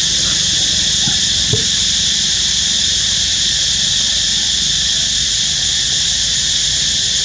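Steady, high-pitched drone of an insect chorus, with a couple of faint short sounds about a second in.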